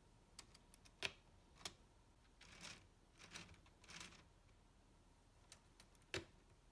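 Scattered clicks of plastic LEGO Technic parts being handled on a model truck's outrigger and gear rack, a sharp one about a second in and another near the end, with soft rustles in between.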